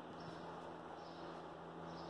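Quiet room tone: a steady low hum, with a faint high chirp-like sound coming back about once a second.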